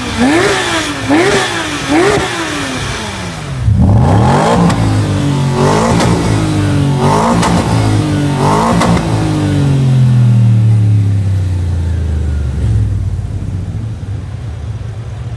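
A sports car engine revved while standing: three quick throttle blips, then about four seconds in a run of four higher revs. The engine then sinks slowly back to a steady idle.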